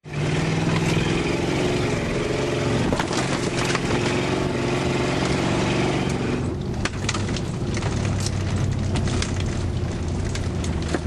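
1972 Cadillac's V8 engine running under load as the car is driven off-road, with frequent knocks and rattles from the body and cabin as it bounces through the brush. The engine's low hum grows stronger about six and a half seconds in.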